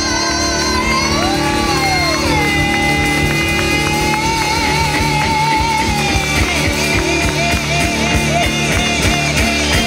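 Live rock band playing: a lead line with long sliding, bent notes over sustained bass, with the drum beat growing denser and more regular about halfway through.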